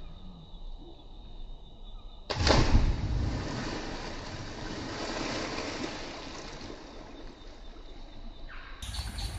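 A person jumping feet-first into a flooded quarry pond: a sudden loud splash a little over two seconds in, then several seconds of water falling back and churning as it fades. Near the end comes a rougher, louder noise with a low rumble.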